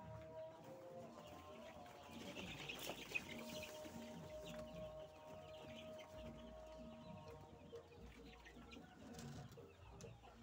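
Laying hens in a coop clucking and calling faintly.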